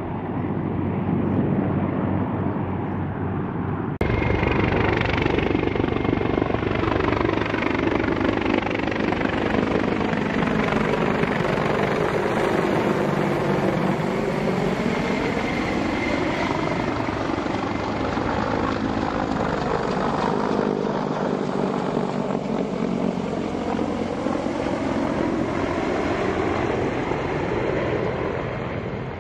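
US Marine Corps CH-53 heavy-lift helicopter flying past, its rotor and engines running steadily. The sound steps up at a cut about four seconds in, and its tone sweeps slowly up and down as the helicopter passes.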